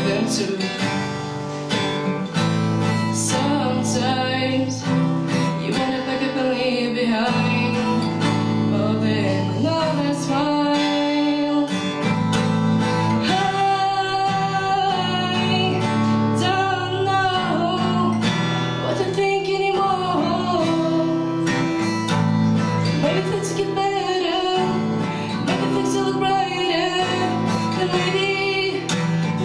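Young woman singing a slow melody while strumming chords on an acoustic guitar, played live through a microphone.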